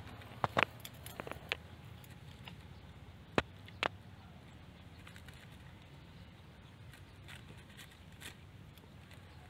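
A dog eating rice from a foam takeaway tray: irregular sharp clicks and smacks of chewing, with the muzzle knocking the tray, most of them in the first four seconds, over a low steady background rumble.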